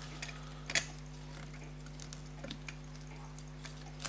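Small, irregular metallic clicks and taps of a fusee pocket watch movement being fitted back into its solid silver case, with one sharper click about a second in. A steady low electrical hum sits underneath.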